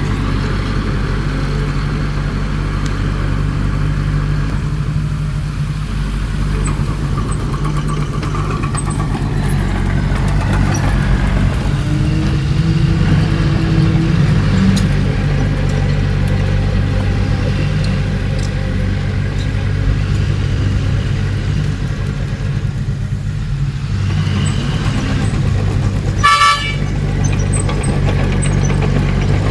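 Diesel engine of a Komatsu D20P bulldozer running steadily under work, with a short horn toot near the end.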